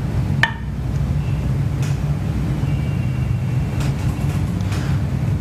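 Steady low background rumble with a few faint, light taps.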